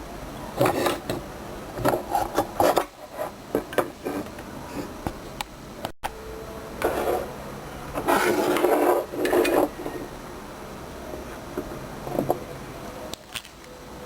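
Metal parts and tools clattering and scraping as a microwave oven is taken apart: scattered clicks and knocks, with bursts of rasping scrape, the longest about eight to nine and a half seconds in.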